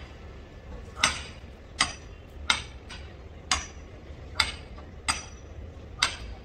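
Sledgehammer blows driving a tent stake into the ground: seven sharp, ringing strikes in a steady rhythm, roughly one every 0.8 seconds.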